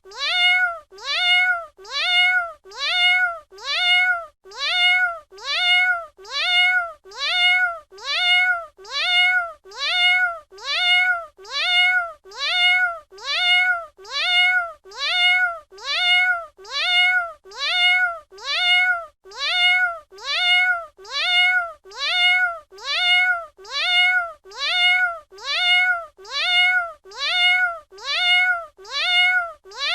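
A domestic cat's meow repeated about once a second, the same call each time as a loop. Each meow rises in pitch, holds, then falls slightly.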